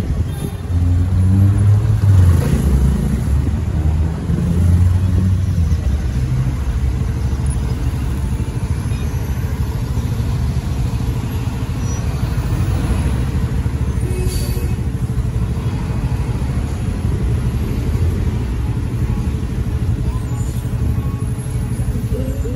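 Motorcycle engine and road noise heard from on board while riding: the engine note shifts up and down in the first few seconds, then settles into a steady low rumble.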